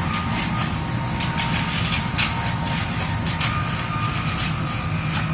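Heavy construction machinery running steadily during a concrete pour: a constant low engine rumble with a thin, steady high whine over it and scattered short knocks and clacks.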